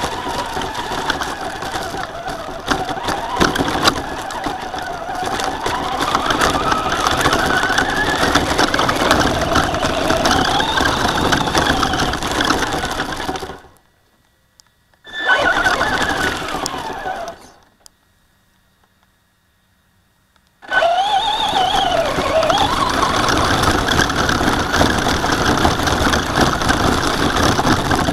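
Slash radio-controlled truck driving, heard from a camera mounted on it: its motor whine rises and falls with the throttle over constant drivetrain and tyre noise. The sound drops out to near silence twice in the middle, where separate runs are cut together.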